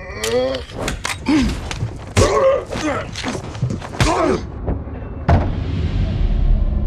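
Two men fighting hand to hand over a pistol: several heavy thuds and knocks of blows and bodies hitting seats, with strained grunts and groans. A last hit comes about five seconds in, then a steady low rumble of the moving train.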